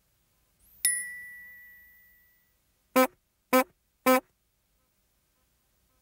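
A single bell-like ding rings out and fades over about two seconds, then a Honker Muppet gives three short honks about half a second apart.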